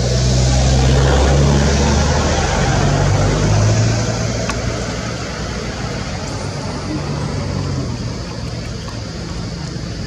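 A motor vehicle's engine running nearby, loudest in the first four seconds and then fading as it moves off, over a steady high hiss.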